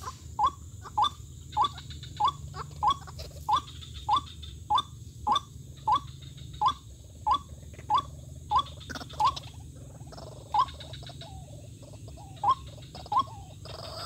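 White-breasted waterhen calling: a short upward-bending note repeated over and over, about every half second, with a lull about ten seconds in. A steady low hum runs underneath.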